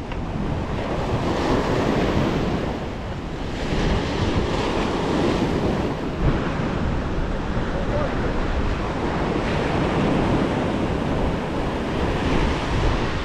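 Ocean surf breaking and washing up the beach, a steady rushing that swells and eases, with wind buffeting the microphone.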